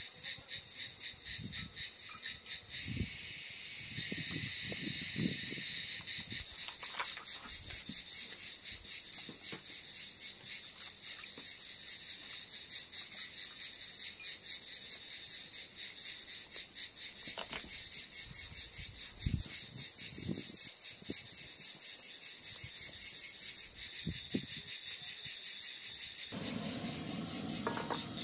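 Insects chirping in a fast, even pulse throughout, with a few soft knocks and handling sounds as dough sheets are laid in a frying pan. Near the end a steady low rush joins in, the portable gas burner lit under the pan.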